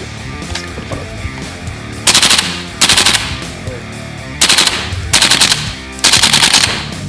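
KWA AKG-74 electric airsoft rifle firing on full auto, in five short bursts of rapid shots, each about half a second long.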